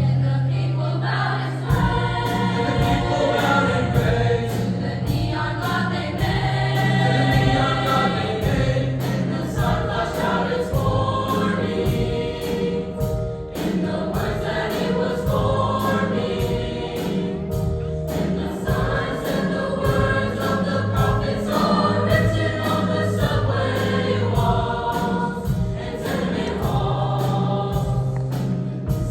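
Junior high girls' choir singing a song with many voices together, over an accompaniment with steady low bass notes.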